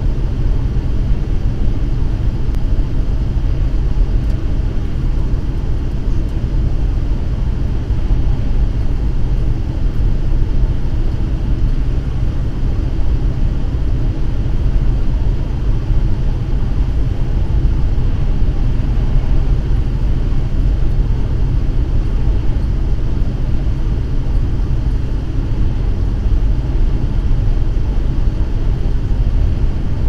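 A car driving, heard from inside the cabin: a steady low rumble of tyres and engine.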